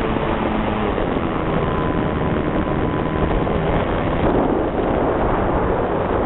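Radio-controlled model airplane in flight, heard from its onboard camera: a steady rush of wind over the microphone mixed with the motor and propeller, with a faint motor tone that comes and goes.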